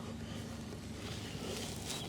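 Faint rustling of movement through woodland undergrowth and leaf litter.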